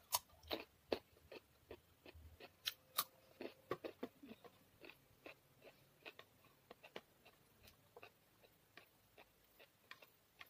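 Crunching and chewing of a carrot stick: a cluster of sharp crunches from biting in the first three seconds, then a steady run of softer chewing clicks.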